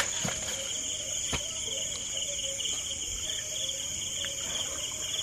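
Night chorus of crickets and other insects: a steady high-pitched chirring with a faster pulsing trill under it. A sharp knock comes right at the start and two fainter ones follow within the first second and a half.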